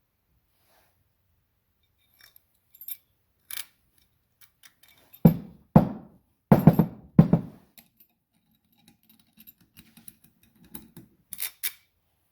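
Metal parts of a bench vise being handled: scattered light clicks, then four heavy knocks about five seconds in, and a few small metallic clinks near the end.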